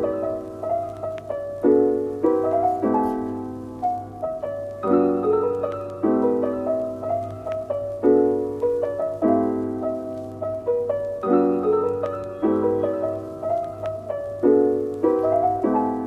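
Background music: a soft piano track of chords, each struck and left to fade.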